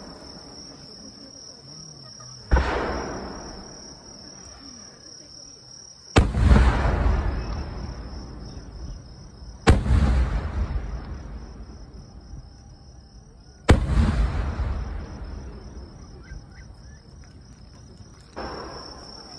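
Aerial firework shells bursting overhead: four loud booms a few seconds apart, each trailing off in a long rolling echo, and a softer bang near the end. Crickets chirr steadily and high-pitched underneath.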